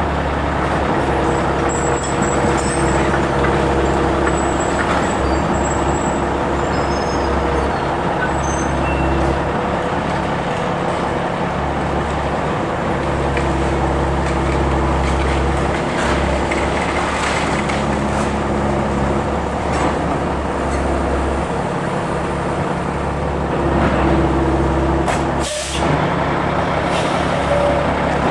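Diesel engine of a semi tractor pulling a dump trailer running steadily at idle. A short sharp hiss of air near the end.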